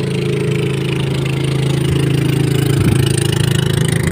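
A small engine runs steadily and close by, having caught just before. It grows slightly louder as it goes.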